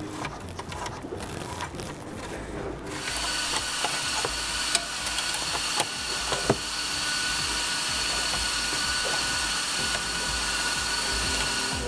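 Cordless drill spinning a wire brush against the hub-mounting face in the centre of an alloy wheel, cleaning the rusty mating surface: a steady motor whine over a scratchy brushing hiss, starting about three seconds in. Before it, a few light clicks from handling.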